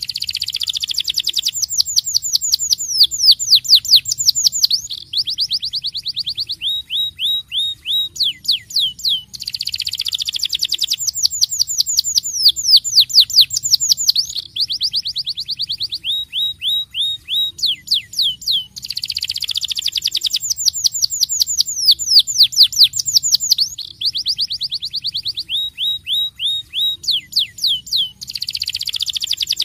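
Starblue canary singing a continuous, loud song of rapid falling notes and rolling trills. The same sequence of phrases comes round about every nine seconds.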